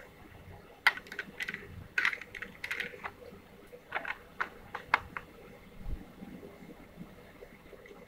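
A run of quick, irregular light clicks and taps of small hard objects, coming thickly from about a second in and thinning out after the middle.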